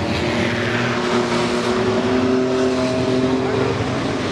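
A pack of compact pickup truck race engines running at speed on a short oval track. Several engine notes overlap, with some climbing a little in pitch as the trucks accelerate.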